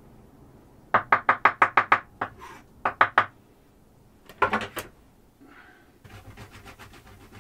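Zırh, a two-handled curved mincing knife, rapidly chopping vegetables on a cutting board. There is a quick run of about eight knocks a second in, then shorter runs of strokes, and faint fast tapping near the end.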